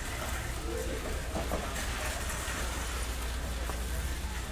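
Warehouse-store ambience: a steady low rumble with an even background wash, and faint indistinct voices about a second in.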